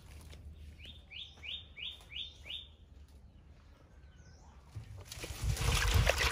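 A bird calls a quick series of six rising notes about a second in. Near the end, water splashes and sloshes as hands wash green onions in a metal basin of water; this splashing is the loudest part.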